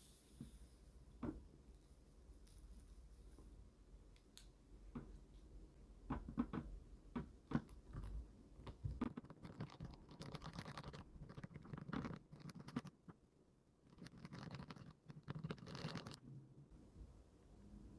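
Soft, intermittent scratching and light clicking of small plastic pieces being handled, busiest in the second half.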